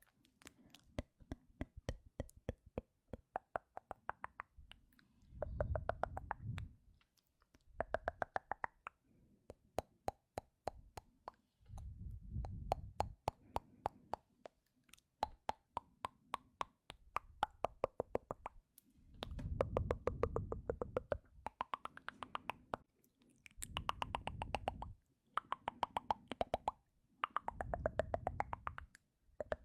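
ASMR mouth sounds: rapid tongue clicks and lip pops, many a second, coming in bursts of one to two seconds with short pauses between.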